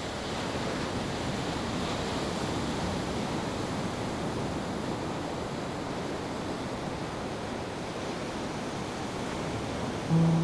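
A steady rushing noise with no speech. About ten seconds in, a louder low held tone begins.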